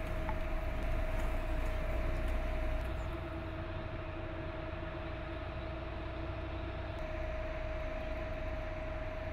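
Eight-wheeled armoured infantry vehicle's engine running steadily, a constant high whine over a low rumble, slightly quieter after about three seconds.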